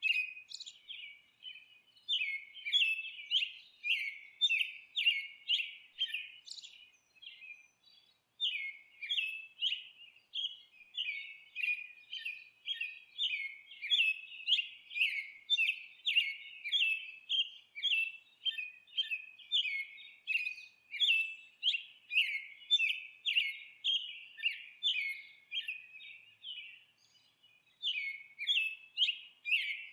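A songbird chirping over and over: short, high, downward-sliding chirps, two or three a second, with a few brief pauses.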